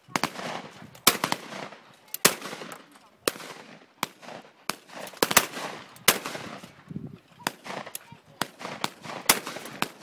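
Rapid, irregular volley of shotgun shots from several shooters firing at a flush of clay targets, roughly one to two shots a second, each a sharp crack with a short echo trailing off.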